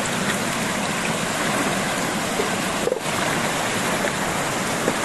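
Water rushing steadily over a low concrete spillway into a shallow channel, with splashing as a man wades through it sweeping a hand net.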